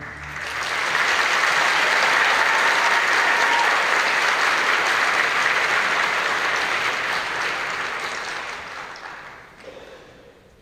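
Audience applauding in an auditorium. The applause swells over the first second, holds steady, and dies away near the end.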